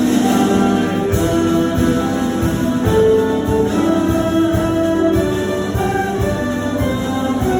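Jazz big band playing live: held chords from the band over a steady pulse of low drum and bass hits, the chords changing about once a second.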